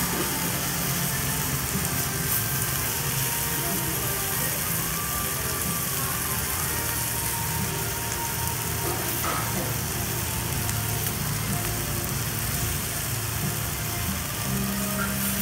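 Meat sizzling steadily on a hot griddle plate over a portable gas stove as it is turned with tongs.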